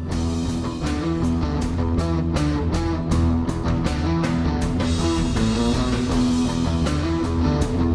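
Background rock music: guitar over a bass line and a steady drum beat.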